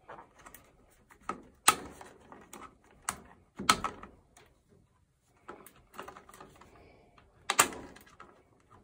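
Snap clips of the white plastic control-board cover on a Whirlpool Duet dryer being pried loose by hand: a series of sharp, irregular plastic clicks and snaps against the sheet-metal panel. The loudest come about two seconds in, near four seconds and near the end.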